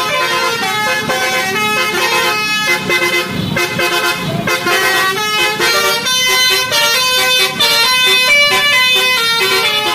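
Indonesian bus 'telolet' horn, a set of multi-tone air horns, playing a tune: several pitches sound together and jump from note to note, changing more quickly in the second half.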